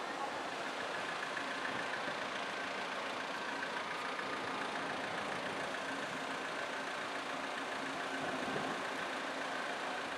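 Steady hum of street traffic and idling car engines, even throughout with no revving.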